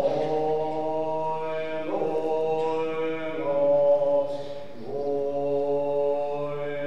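Tibetan Buddhist monastic chant: a slow chant of long held notes, stepping to a new pitch every second or two.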